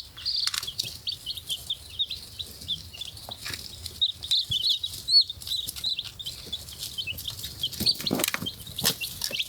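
A brood of young Australorp chicks peeping, many short high chirps overlapping without pause. A few soft knocks and rustles come through among the chirps.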